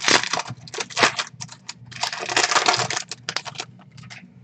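Baseball trading cards being handled and flicked through, with sharp slaps and clicks and a longer stretch of rustling near the middle.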